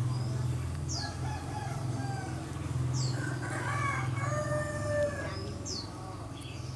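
A rooster crowing, one drawn-out call about three seconds in, with a bird's short, high, falling chirps every second or two and a low steady hum underneath.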